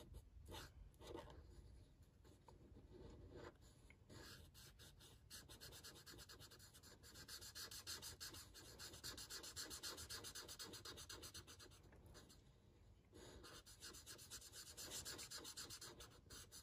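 Faint, rapid scratching of a Stampin' Blends alcohol marker tip stroking back and forth over white card stock, colouring in and blending a stamped image. It comes in stretches with a short lull about twelve seconds in.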